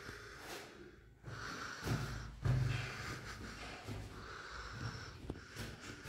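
A person breathing heavily close to the microphone, several breaths in and out in turn.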